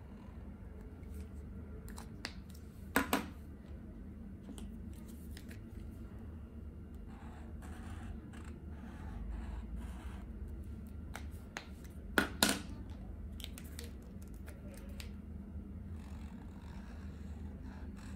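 Posca paint-marker nib scratching lightly on paper, with sharp plastic clicks about three seconds in and again about twelve seconds in, as a marker cap is snapped on or off.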